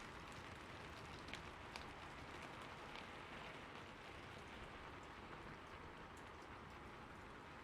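Rain falling on a rooftop: a steady, soft hiss with scattered sharper taps of single drops.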